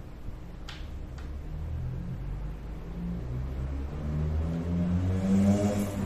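A motor vehicle's engine running, a low rumble with a shifting pitch that grows steadily louder. Two light clicks about a second in.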